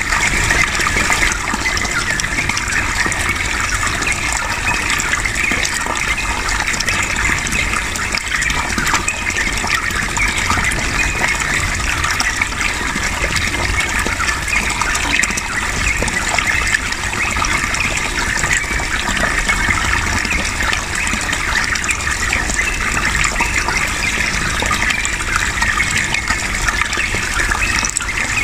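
Running water, a steady rushing gush with no pauses.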